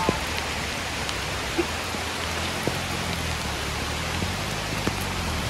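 Steady rain falling on a wet road and the leaves around it, with a few single drop taps standing out.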